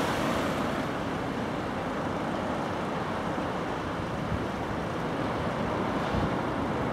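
Steady rumble and hiss of railway station background noise, without distinct events.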